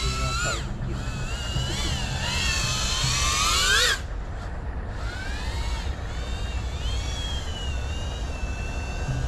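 FPV quadcopter's brushless motors whining in flight, the pitch sweeping up and down with the throttle. About four seconds in the whine climbs steeply to its loudest, then cuts off abruptly before picking up again with gentler rises and falls.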